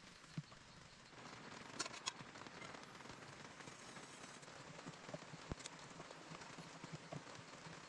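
Light rain pattering steadily, starting about a second in, with a few sharp clicks.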